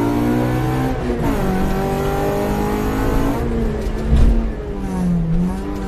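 Honda Civic's 1.6-litre VTEC four-cylinder engine heard from inside the cabin under hard acceleration. The revs drop for a gear change about a second in, climb again for about two seconds, then fall away to a lower, steadier note. A dull low thump comes about four seconds in.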